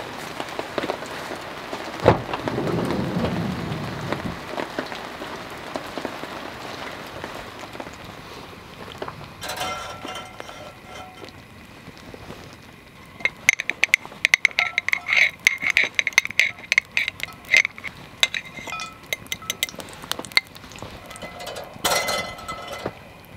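Steady rain falling, with a single thump about two seconds in. Later, oil heating in a cast-iron skillet over a propane fire pit crackles and sizzles in dense bursts.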